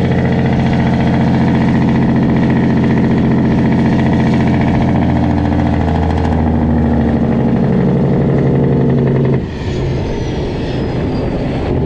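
Straight-piped Cat C15 diesel in a Peterbilt running loud and steady, its pitch stepping down a little about six seconds in. About nine and a half seconds in the engine sound drops off sharply while a thin whistle falls away, and it picks up again near the end.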